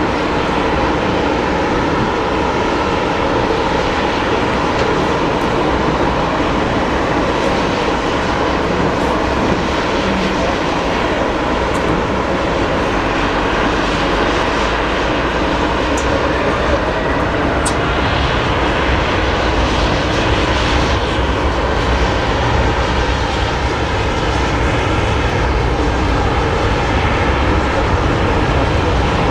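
Boeing 787-8 airliner's jet engines running, a loud steady whine and rush of noise that holds even throughout.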